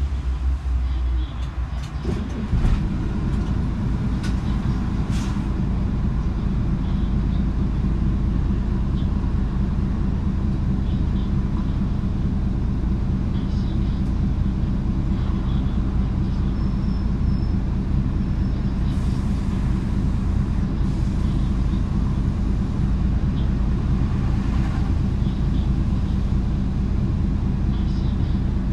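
Diesel engine of a Hino Blue Ribbon KC-HU2PMCE city bus running at a steady, unchanging note, with a heavier low hum that gives way about two seconds in and a few light clicks.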